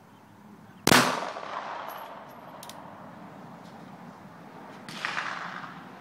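Two pistol shots about four seconds apart. The first, about a second in, is the louder and echoes away over about a second; the second, near the end, is weaker.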